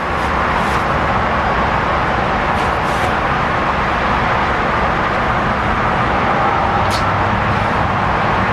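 2019 Kawasaki KLX110's single-cylinder four-stroke engine running steadily on its first start after a fresh cylinder head, with a few brief clicks on top.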